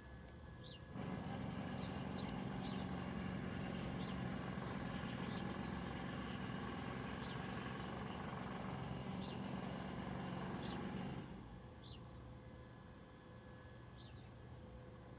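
Small birds chirping: short, high, falling chirps every second or so. Under them a steady low hum starts abruptly about a second in and dies away about eleven seconds in.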